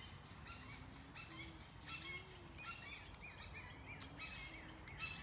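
Birdsong outdoors: short, repeated phrases of rising and falling chirped notes, about one phrase a second, fairly faint, with a few soft low held tones underneath.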